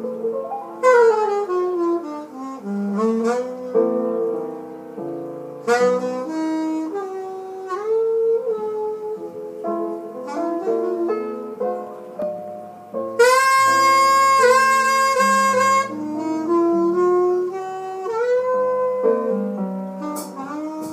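A jazz LP played back through Jadis hi-fi loudspeakers driven by a tube power amplifier. A saxophone leads over the band, holding one long bright note about 13 seconds in.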